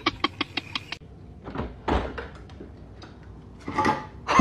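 A dog's rapid rhythmic pulsed vocalising, about six pulses a second, stops about a second in. After it come a few short scuffs or knocks.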